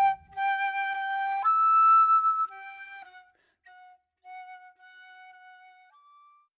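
A solo flute playing a slow melody of long held notes, jumping up to a higher note about a second and a half in, then growing softer and fading out on a short high note near the end.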